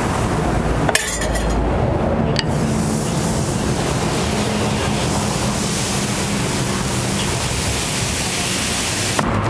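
Crepe batter poured onto a hot round crepe griddle and spread thin with a wooden spreader: a steady sizzling hiss over a low hum, with two sharp clicks in the first few seconds.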